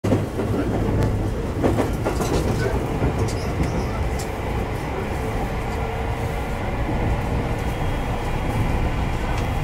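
Passenger train running at speed, heard from inside the carriage: a steady, even running noise of wheels on rail and the car in motion.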